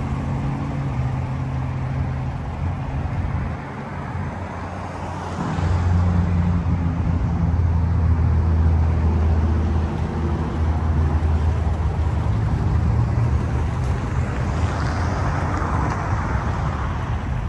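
Volkswagen bus engine running steadily, then louder and deeper from about five seconds in as the bus pulls away and drives slowly across the lot.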